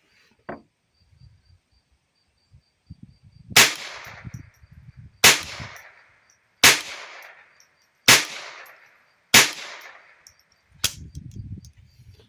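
Six shots from a Savage A22 Precision semi-automatic .22 LR rifle, fired about one and a half seconds apart. Each sharp crack trails off in an echo.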